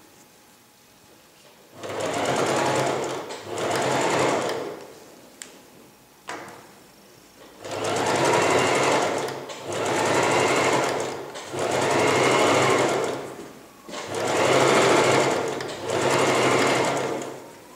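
Electric domestic sewing machine stitching in a series of short runs, each speeding up and slowing down, with brief pauses between. It starts about two seconds in and stops for a couple of seconds midway before sewing on.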